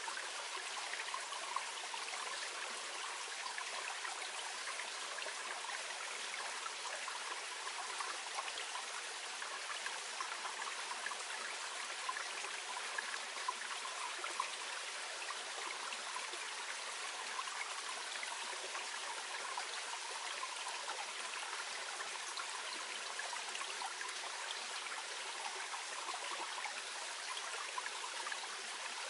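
A small clear mountain stream flowing gently, a steady babbling of water over stones.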